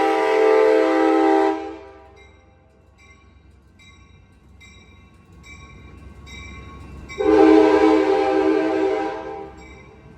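Multi-note air horn on the leading cab car of an Amtrak San Joaquin push-pull train, giving two long blasts. The first cuts off about two seconds in and the second runs from about seven to nine and a half seconds in. Between and after the blasts a bell dings steadily, about twice a second.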